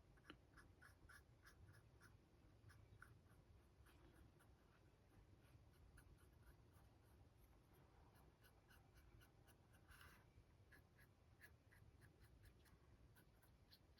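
Near silence with faint, irregular little ticks and scratches, several a second, of a paintbrush dabbing and stroking acrylic paint onto a 3D-printed figure, with one slightly longer scrape about ten seconds in.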